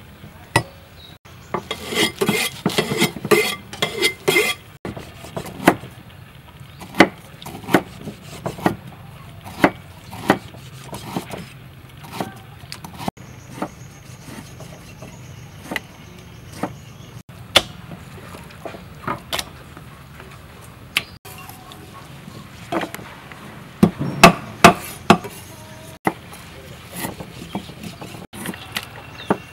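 Cleavers chopping raw pork on a wooden chopping block: irregular sharp knocks, with a fast run of chops about two seconds in and a loud cluster of strikes near the end.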